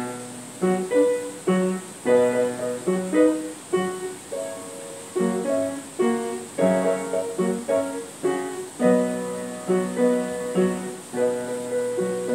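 Piano playing an instrumental introduction: chords and melody notes struck one after another, each left to ring and fade.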